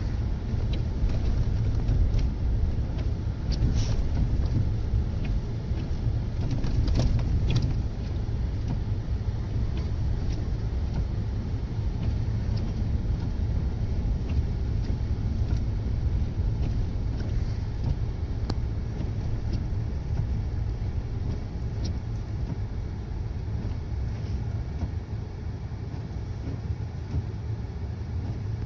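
Pickup truck driving on a snowy road: a steady low rumble of engine and tyres, with a few faint clicks.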